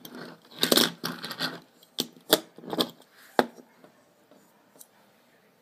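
Handling noise of a Mattel Grease Rod toy car being picked up from a desk and turned over in the fingers: about a second of scraping and rustling, then four sharp clicks of the car's body and wheels against fingers and desk.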